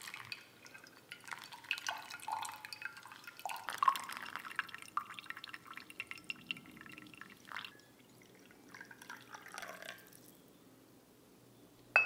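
Pour-over coffee brewing: hot water poured in a thin stream onto grounds in a stainless steel cone filter, and brewed coffee trickling and dripping into a glass server, fading out about ten seconds in. Right at the end comes a single sharp knock as a glass mug is set down.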